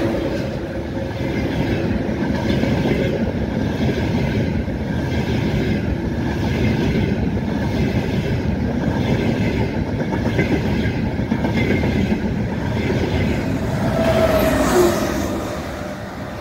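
Frecciarossa high-speed electric train running past the platform: a steady rumble of wheels on rail, with an even rhythm of clacks about three every two seconds as the carriages go by. A brief tone sounds near the end.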